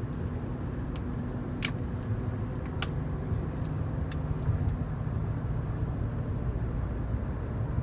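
Steady low rumble of a car's interior road and engine noise while driving, with a few short clicks.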